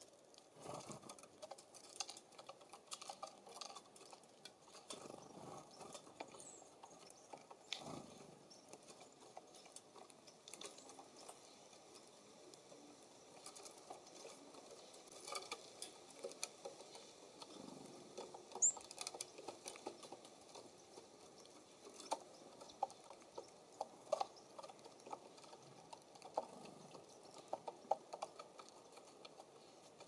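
Birds feeding at a feeder station: a Nuttall's woodpecker pecking at a suet cake in a wire cage and small birds on a wooden seed tray, giving faint, irregular taps and clicks. A single short high chirp sounds a little past the middle.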